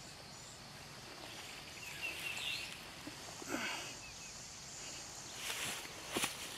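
Quiet rural outdoor ambience with a few faint bird chirps, then rustling noise and a sharp click or two near the end.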